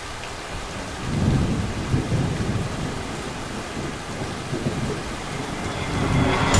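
Thunderstorm: steady rain hiss with low rolling thunder, which swells about a second in and builds again near the end.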